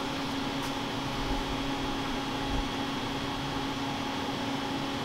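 A steady machine hum with a constant low tone.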